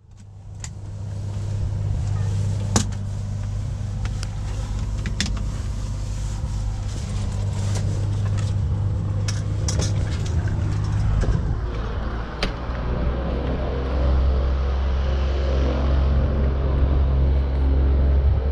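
An engine running steadily at a low pitch, fading in at the start and settling to a lower note about twelve seconds in, with scattered sharp clicks and knocks over it.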